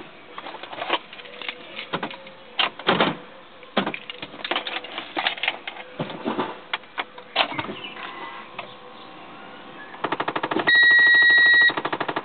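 Irregular clicks and knocks from handling inside a Renault Mégane CC's cabin. About ten seconds in, a rapid, even clatter starts as the starter cranks the engine, with a high electronic beep held for about a second over it.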